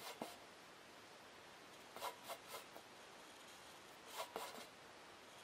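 Short scratching strokes of a marking tool drawn across the bottom of an upturned metal bowl, in small clusters: one at the start, three or four about two seconds in, and two or three about four seconds in.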